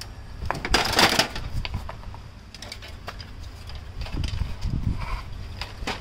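HP LaserJet Pro MFP M125 printer's plastic casing being pried open with a screwdriver: a loud crackling snap about a second in, then scattered clicks and light knocks of plastic against metal.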